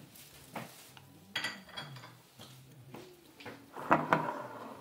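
Metal fork clinking against a glass jar of artichoke hearts, a few sharp clinks, one with a short ring. A louder glass knock near the end as the jar is moved on the stone countertop.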